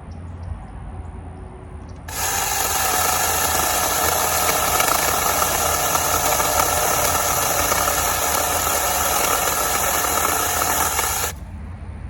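Natiddy battery-powered mini chainsaw running steadily, starting about two seconds in and cutting off shortly before the end after roughly nine seconds, with an even, high-pitched motor and chain whine.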